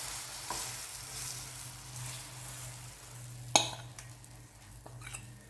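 Soya chunk, carrot and egg batter sizzling in hot coconut oil in a non-stick pan as it is spread out, with one sharp knock on the pan about three and a half seconds in.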